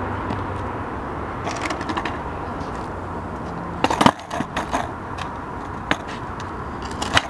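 A skateboard being handled and set up at the edge of a wall, giving a few sharp clicks and knocks, the loudest cluster about four seconds in, over steady outdoor background noise with a low hum.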